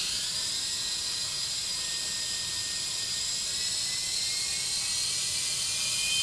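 Toy helicopter's motor and rotors whirring steadily, a high whine whose pitch climbs slowly as the rotors spin up.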